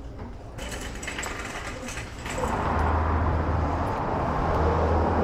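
Steady road and engine noise heard from inside a moving car, setting in and growing louder about two and a half seconds in.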